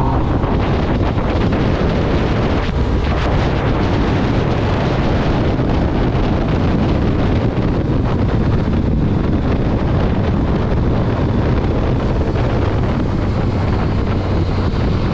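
Strong wind rushing over the microphone of a motorcycle at speed, loud and steady, with the engine running at an even pitch underneath.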